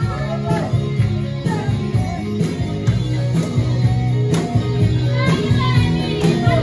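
Upbeat dance music with a steady beat and a sustained bass line.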